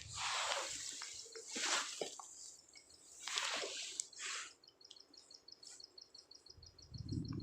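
Spinning fishing reel winding in line in four short whirring spurts during a lure retrieve, over rapid high chirping at about six chirps a second that takes over after the spurts. A low rumble comes in near the end.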